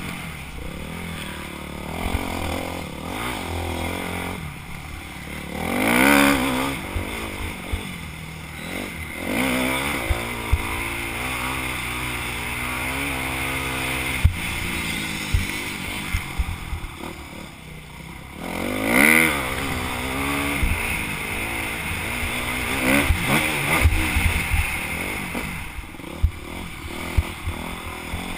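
Yamaha YZ250F's 250cc four-stroke single-cylinder engine running under load, its pitch climbing and dropping again and again with throttle and gear changes, surging loudest twice. Sharp knocks come through here and there.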